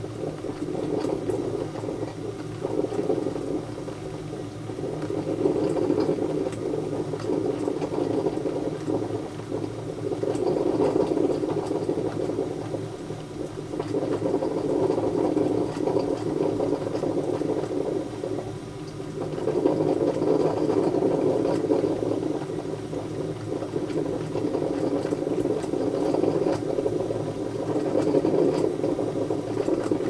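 Melitta Look Therm Timer filter coffee machine brewing: water bubbling and gurgling as it boils through the heater. The gurgle swells and eases every few seconds.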